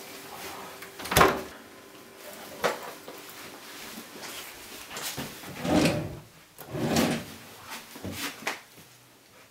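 A series of separate knocks and thuds, like drawers or doors being handled. The loudest comes about a second in, and a few more follow, some longer and duller.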